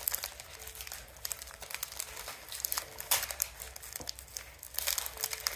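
Wrapper of a sealed cricket trading card pack crinkling and being torn at by hand as it is pried open, in irregular crackles with louder bursts about three seconds in and near the end. The pack is hard to open.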